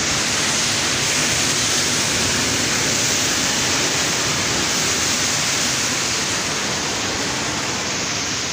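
Sea surf breaking and washing over coastal rocks: a steady, loud rushing roar.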